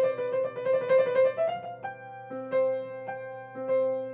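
Grand piano played solo, improvising a light, playful figure in C major: quick repeated notes, a short rising run about a second and a half in, then slower notes left ringing.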